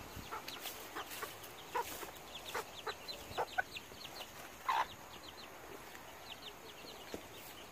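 Chickens clucking in short, separate calls, the loudest a little past the middle.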